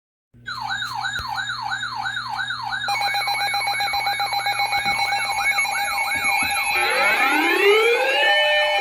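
Electronic siren sounding: quick falling pitch sweeps repeat about three times a second, a steady tone joins about three seconds in, and slower rising wails take over near the end.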